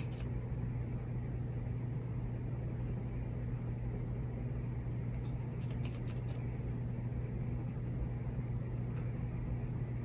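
A steady low electrical or mechanical hum over a soft background hiss, with a few faint light clicks around the middle.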